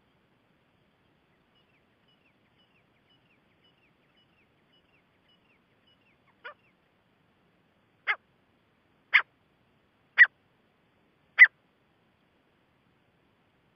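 Gray francolin calling: a faint run of short high notes, about two a second, then five loud sharp calls about a second apart, each louder than the last.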